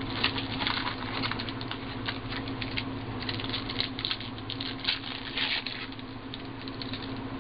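Shiny plastic wrapper of a trading-card pack crinkling and crackling as it is taken from the box and torn open: a dense run of small irregular crackles that thins out near the end.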